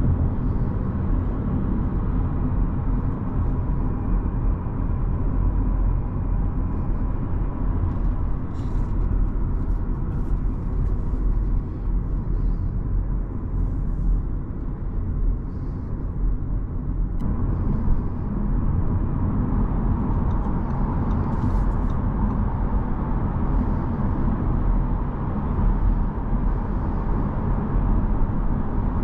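Cabin noise of an Audi A4 B9 with a 2.0 TFSI four-cylinder petrol engine cruising at motorway speed: a steady low rumble of tyres, road and engine. The sound shifts abruptly a little past halfway.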